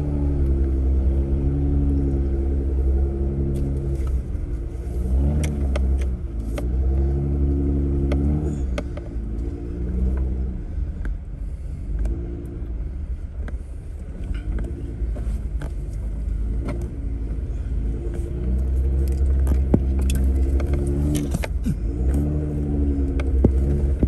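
Jeep Gladiator's V6 engine pulling at low speed on a rough dirt trail, its pitch rising and falling in spells as the throttle comes on and off, easing off in the middle. Scattered sharp clicks and knocks run over it.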